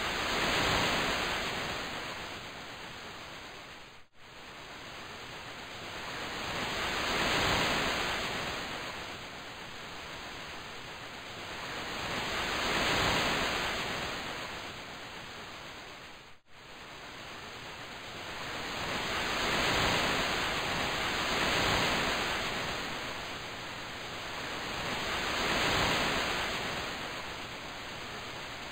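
Ocean surf sound effect: a steady hiss that swells and fades every five to six seconds, like waves washing in. It cuts out twice for an instant, about four seconds in and again about sixteen seconds in.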